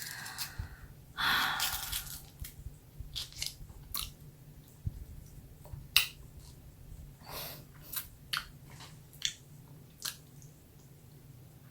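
Close-up chewing and mouth sounds of someone eating a mini Cornetto ice cream cone wrapped in vegetarian ham. A louder noisy bite comes about a second in, then scattered sharp wet mouth clicks and smacks, over a faint low hum.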